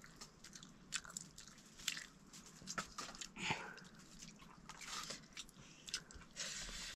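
A person biting and chewing food close to the microphone: irregular small wet clicks and smacks of the mouth.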